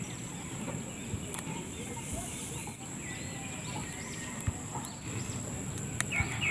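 Rural outdoor ambience: a steady high-pitched insect drone with birds chirping now and then, and a couple of faint clicks.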